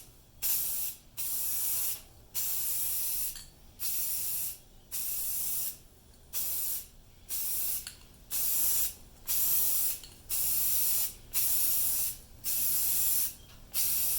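Aerosol can of Rust-Oleum 2X Ultra Cover semi-gloss paint-and-primer spraying in about a dozen short bursts of roughly a second each, with brief pauses between. This is a first coat being sprayed onto a plastic tractor grill without a separate primer.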